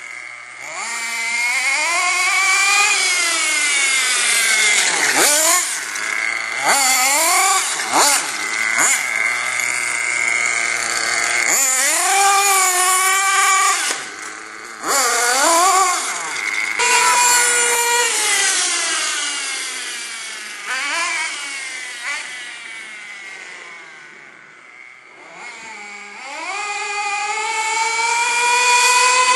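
Carson off-road nitro RC car's small glow-fuel engine revving hard, its high whine climbing and dropping again and again as the car accelerates and slows. It fades lower for a few seconds late on, then revs up loudly again near the end.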